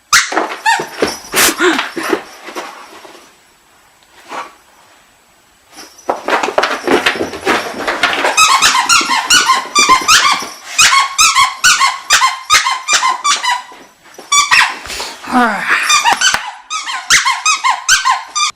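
Dog's squeaky toy squeaking over and over as she chews it, short squeaks several a second. A burst at the start, a lull a few seconds in, then rapid runs of squeaks from about six seconds in.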